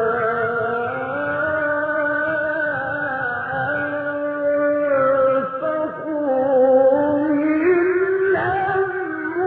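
A male reciter chanting the Quran in a melodic style, holding long ornamented notes that slide slowly up and down in pitch. There is a short break about halfway, and the voice climbs higher near the end.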